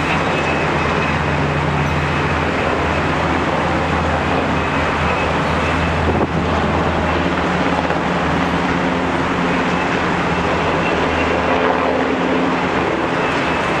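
Military helicopter flying overhead, a steady low drone that stays at an even loudness.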